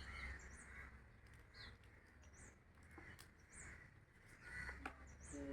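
Faint, short, high bird chirps about once a second over a low background hum, with a few light clicks.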